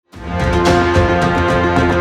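Loud background music with a heavy bass and a steady beat, starting abruptly.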